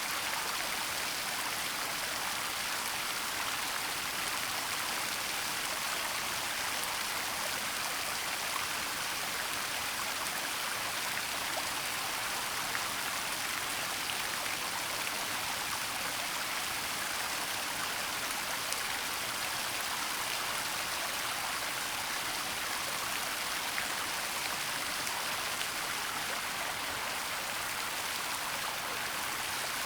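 Waterfall rushing steadily: a constant hiss of falling water.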